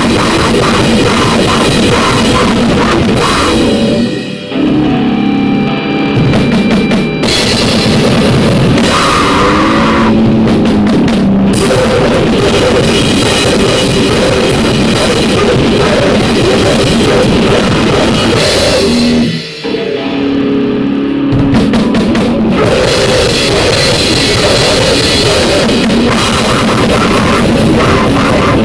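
Loud, dense noise music: a distorted wall of sound filling the whole range, which dips briefly twice, about four seconds in and again about twenty seconds in.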